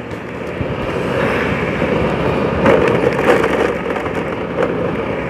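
Motorcycle riding along a street, heard from a phone strapped to the rider's chest: a steady rough engine and road noise, with a couple of sharper knocks around the middle.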